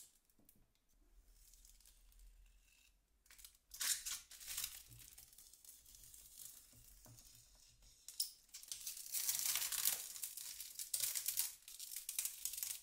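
Plastic protective film being peeled off a picture frame's plastic front lens. A couple of short peels come about four seconds in, then a long continuous peel runs through the last four seconds.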